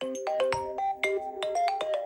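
Smartphone incoming-call ringtone: a fast electronic tune of short notes that starts suddenly and loops about every two seconds.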